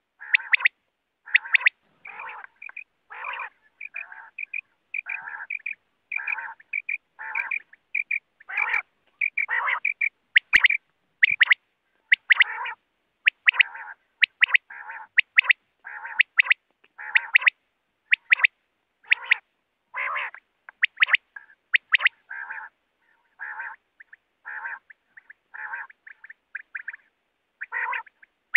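Quail calling over and over in short hoarse notes, about one to two a second, with brief pauses between runs. A single sharp click sounds about ten seconds in.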